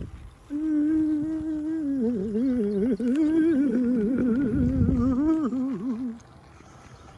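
A person humming a wavering tune for about five and a half seconds, the pitch held at first and then sliding up and down, with a low rumble underneath partway through.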